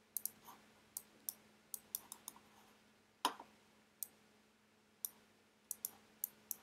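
Scattered sharp clicks of a computer mouse and keyboard during desktop work, about a dozen and a half at irregular spacing, the loudest about three seconds in.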